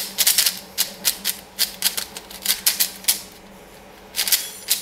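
Moyu Aosu 4x4 speed cube being turned by hand: quick runs of clacking plastic layer turns, with a pause of about a second before a last flurry of turns near the end.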